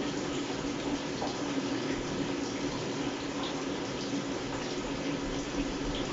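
Sharp ES-KS70K washing machine filling its tub: water running in steadily, with a steady low hum beneath.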